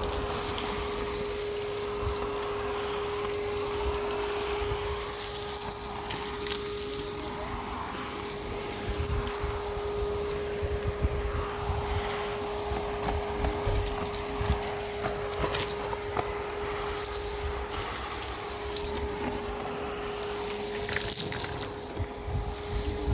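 Miele Complete C2 canister vacuum running with a steady whine, crackling as it sucks up grit and debris, with wind rumbling on the microphone.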